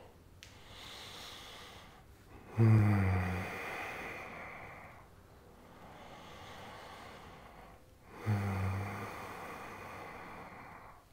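A man's slow, deep audible breathing. Two long exhales come about three and eight seconds in, each starting with a short voiced sigh and fading into breath, with quieter inhales between.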